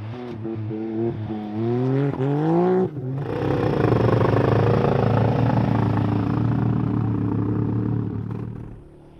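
ATV engine accelerating hard, its pitch climbing with brief dips at the gear changes; about three seconds in it turns into a steadier engine note that fades away near the end.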